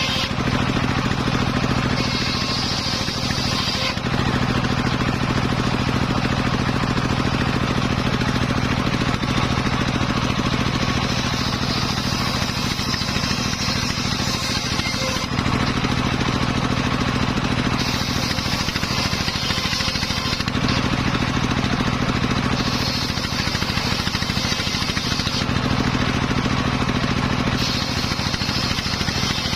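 Home-built engine-driven circular saw running and sawing teak. Its sound is steady, with the tone shifting every few seconds as a higher-pitched band comes and goes.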